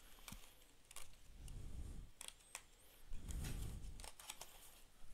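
Cardboard trading-card box being handled as its lid flap is lifted open: faint scattered clicks and scrapes of card stock, with soft low bumps twice.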